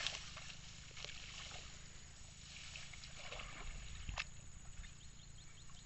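Water sloshing and wet grass rustling as a person wades through flooded tall grass, with scattered small crackles and one sharper knock about four seconds in.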